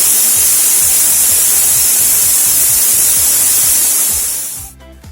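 Pressure cooker whistle blowing: a loud, steady hiss of escaping steam that cuts off suddenly near the end. It marks the one whistle at which the mutton biryani is done.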